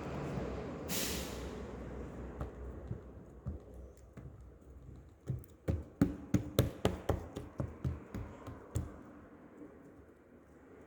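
Homemade glue slime being kneaded and squished by hand, with a soft wet rustling. In the middle comes a quick run of about a dozen sharp clicks and pops as the slime is worked.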